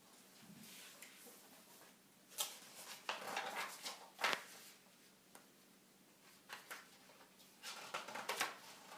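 Paper pages of a picture book rustling and flapping as the book is opened and leafed through, in two spells: about two seconds in, with a sharper snap near the middle, and again near the end.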